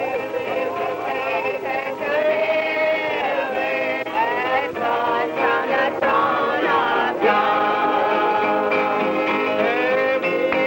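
A group of men and women singing a hymn together, with an acoustic guitar played along.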